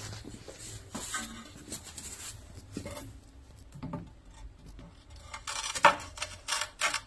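Sharp clicks and light knocks of hard objects against a ceramic floor tile as it and the tiler's tools are handled, with a quick run of louder taps near the end and quieter shuffling before.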